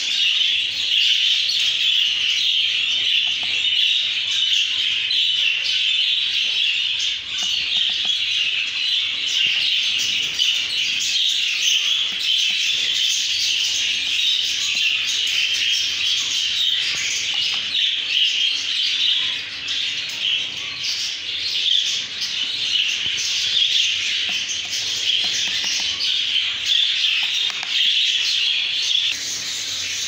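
Budgerigars chirping and chattering in a dense, continuous twitter, with a faint steady hum underneath.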